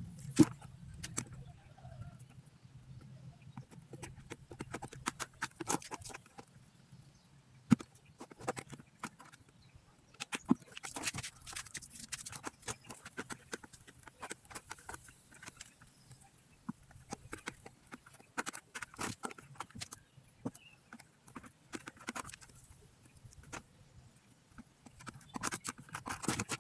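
Irregular clicking and knocking from work on a plastic paint bucket as holes are made in it without a drill, with a few sharper taps standing out.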